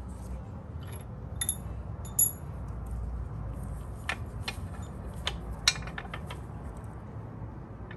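Scattered metallic clinks and clicks from a socket ratchet and the chrome Daytona engine guard as it is fitted to a motorcycle frame bolt, a few clinks ringing briefly, with a quicker run of clicks in the second half. A faint low hum runs underneath.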